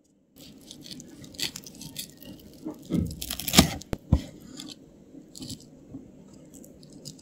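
Irregular crisp crunching and crackling from miniature food being worked, starting abruptly, with the loudest crunches a little past the middle.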